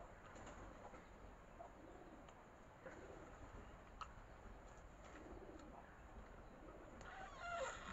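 Faint cooing of a dove, a few low rounded notes over near silence. Near the end comes a short, louder slurp as coconut water is sucked through a straw.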